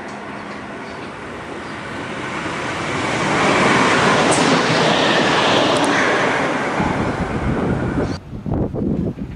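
Two-car Endeavour diesel railcar set running through a station at speed: its rumble and wheel noise build to a peak about 4 to 6 seconds in as it passes close by, then ease off. About 8 seconds in, the sound cuts abruptly to a pair of diesel locomotives approaching.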